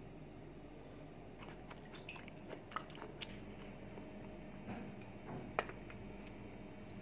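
Faint, scattered clicks and crunches of fresh coconut flesh pieces being handled on a plastic tray, the sharpest click about five and a half seconds in, over a faint steady hum.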